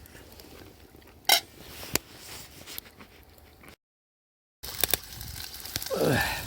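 A spoon clinking against a dish while someone eats curry: a few sharp single clinks over a quiet background, then a short burst of clinks after a cut.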